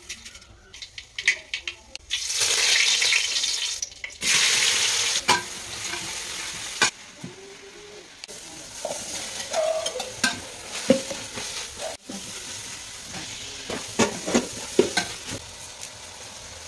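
Food frying in hot coconut oil in an aluminium pot, loud sizzling in the first half, then quieter sizzling while a metal spoon stirs and clinks against the pot.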